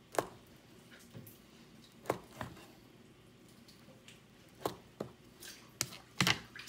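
Chef's knife slicing through a firm, chilled block of rice-flour fried-dough cake, the blade knocking sharply on the cutting board at each cut: about eight irregular chops, two close together near the end.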